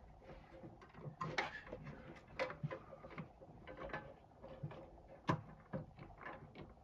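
Irregular clicks, knocks and small clatters of diesel heater parts being handled and fitted back together by hand, with sharper knocks about a second and a half in, near two and a half seconds, and a louder one past five seconds.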